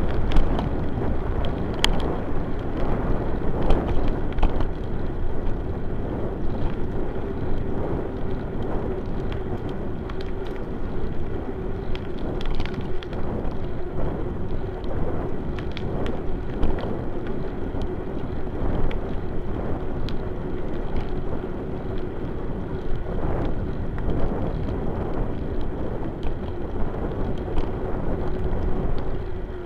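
Bicycle riding on an asphalt path heard from a camera mounted on the bike: the knobby tyre rolls with a steady hum and rumble, with wind noise and scattered light knocks and rattles as the bike rides over bumps.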